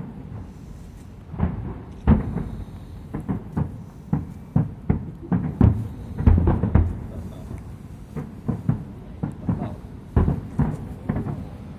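Aerial fireworks going off: an irregular run of deep booms and sharper bangs, one after another, thickest about six to seven seconds in.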